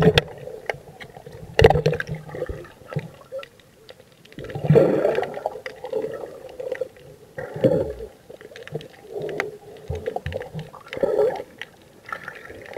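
Muffled underwater gurgling and bubbling from a camera held under the sea surface, coming in irregular bursts every couple of seconds with quieter gaps between.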